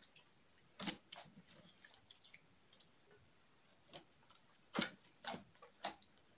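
Hands kneading and pressing green glitter slime, giving irregular sticky pops and clicks as air pockets burst, the loudest about a second in and again near the end.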